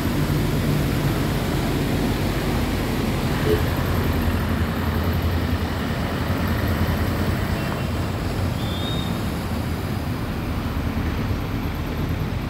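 Steady low rumble of road traffic and vehicle engines, with a brief high-pitched tone late on.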